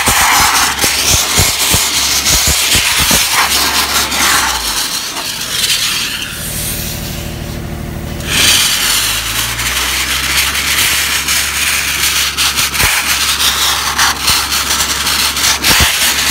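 Wet abrasive blast nozzle hissing loudly as it strips a steel wheel, over a steady low engine drone. The blast stops for a few seconds near the middle, leaving only the drone, then starts again.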